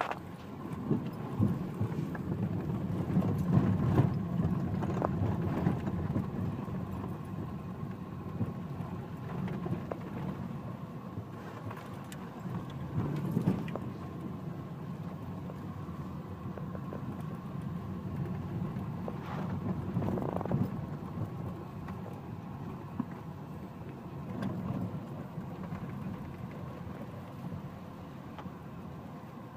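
Nissan X-Trail driving over a rough, muddy dirt track, heard inside the cabin: a steady low engine and road rumble with frequent knocks and rattles from the bumps. It is loudest in the first few seconds and swells briefly twice later on.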